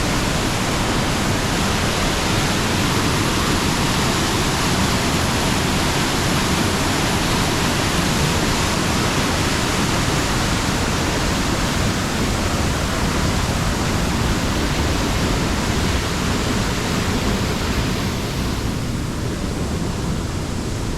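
Waterfall pouring steadily, a loud, even rush of falling water; the upper hiss eases slightly near the end.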